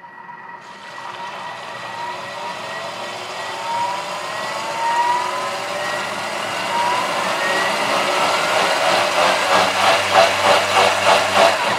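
Thermomix TM6 food processor's motor blending liquid at speed 8 for about ten seconds, mixing a flour-and-butter roux with broth, wine, cream and milk. The whine climbs in pitch as the blade spins up, grows louder as it runs, and stops abruptly at the end.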